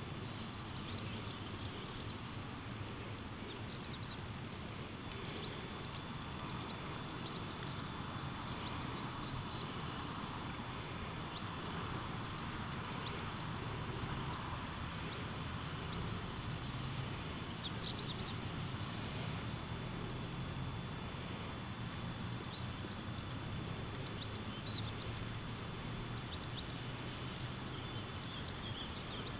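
Outdoor town ambience: a steady low background hum with small birds giving short, high chirps scattered throughout.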